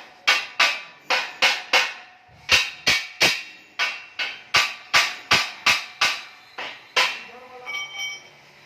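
Hammer blows ringing on steel, about seventeen sharp strikes at two to three a second, stopping about seven seconds in. A brief pitched ringing follows near the end.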